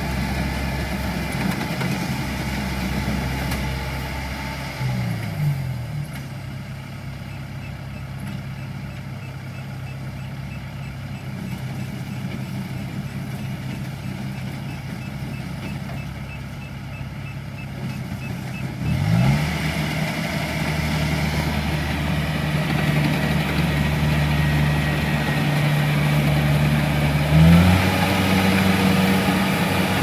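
Diesel engine of a Kubota DC70 rice combine harvester running steadily; about five seconds in its pitch drops and it runs quieter, then it picks up again at about nineteen seconds and steps higher once more near the end.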